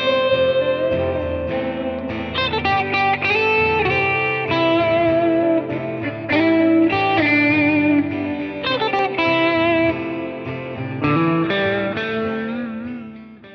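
Intro music led by plucked guitar, melody notes over held chords, fading out near the end.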